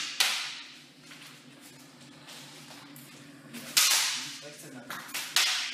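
Sharp cracks of sparring weapons striking in cutlass and pistol sparring: one just after the start, one a little before four seconds in, and two in quick succession near the end.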